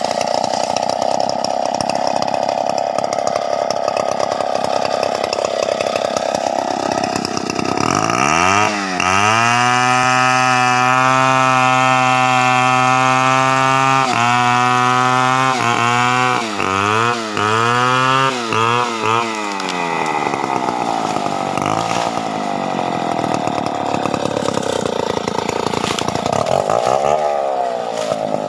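Stihl 070 two-stroke chainsaw running, revved up to full throttle about a third of the way in and held there for several seconds. It is then throttled down and up several times in quick succession before settling back to a lower, wavering speed.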